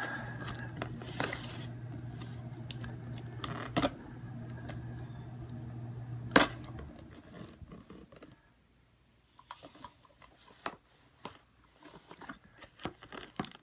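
Razor blade slicing along the packing-tape seam of a cardboard box, with scattered scrapes and sharp clicks. A steady low hum runs underneath and stops about seven seconds in, leaving only faint, sparse handling clicks.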